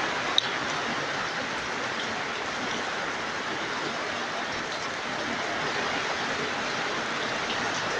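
Heavy rain pouring down on a tent, a steady hiss heard from inside the tent, with one brief tick less than half a second in.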